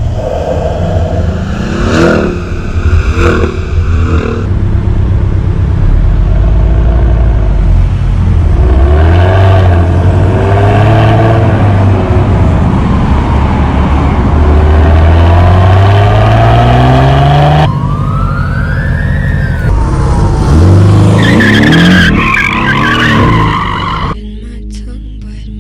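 Porsche 718 Boxster engine accelerating and revving through several drive-bys, its pitch climbing and dropping with each pass. The sound changes abruptly a few times between passes and turns much quieter near the end.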